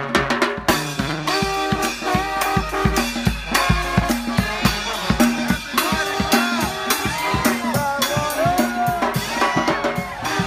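Street brass band playing: trombones and sousaphone holding sustained horn notes over drums that keep a steady, driving beat.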